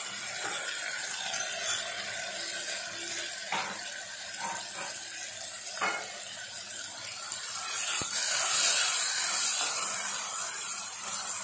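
Tomatoes and clam meat sizzling in hot oil in a stainless steel pot: a steady hiss with a few light clicks, growing a little louder near the end as a wooden spatula stirs them.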